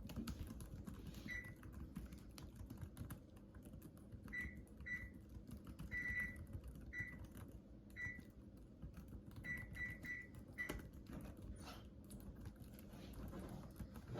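Computer keyboard typing: a run of quick, irregular keystroke clicks, with about ten short high beeps scattered among them.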